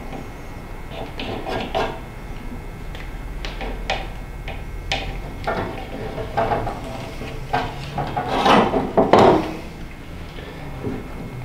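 Irregular scraping, rubbing and clicking from hands and a hand tool working on a metal ammo-can lid as wood-stove gasket is fitted to it. The sounds are loudest in a burst of scraping about eight to nine seconds in.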